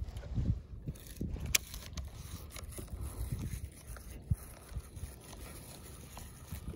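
Wind buffeting the microphone in uneven low gusts, with rubbing and handling noise from clothing and the rod, and a couple of sharp clicks.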